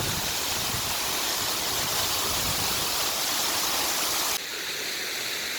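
Large mountain waterfall, a steady rush of falling water. About four seconds in the sound cuts abruptly to a thinner, slightly quieter rush.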